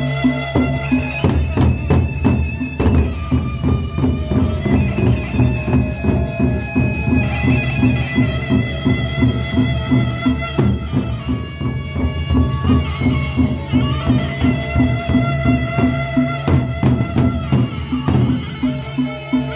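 Lombok Sasak gendang beleq ensemble playing: large double-headed barrel drums beaten with sticks in an even, driving beat of about two to three strokes a second, with held pitched tones ringing over it.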